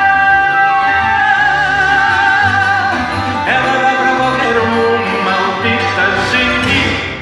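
Live acoustic ensemble playing the end of a song: a male voice and a clarinet over acoustic guitars, with a long held note that wavers in the first half. The music stops right at the end.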